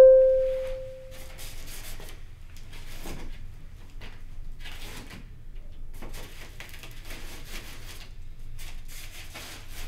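A single bright ding rings out at the start and fades over about a second and a half. Then come short bouts of scraping and rustling as a taped cardboard box is worked open, a knife slitting the packing tape and the cardboard rubbing.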